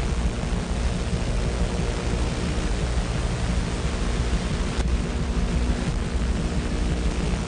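Sound-design drone of dense, steady hiss over a low rumble, with a few steady low hum tones running through it. A single faint click comes about two-thirds of the way through.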